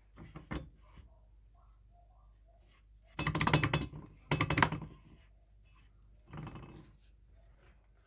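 Stiff paint brush scrubbing paint stripper onto a painted steel tin lid: a few light clicks of handling, then two loud scratchy bristle scrubs about a second apart and a softer third one.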